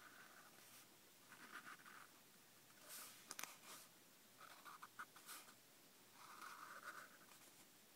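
Black Sharpie felt-tip marker scratching across notebook paper in about five short, faint strokes as letter outlines are traced, with one sharp click about three and a half seconds in.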